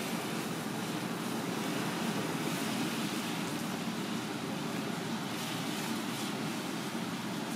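Pot of water at a rolling boil over a lit gas burner, giving a steady low rushing noise.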